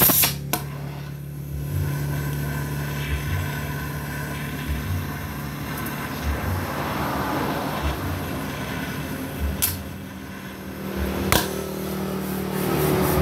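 Gas torch flame hissing as it heats a chrome motorcycle muffler while filler wire is brazed into the joint, over a steady low machine hum. Two sharp clicks come near the end.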